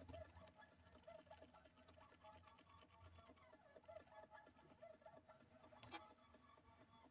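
Near silence: a faint low hum with scattered light clicks and one sharper click about six seconds in.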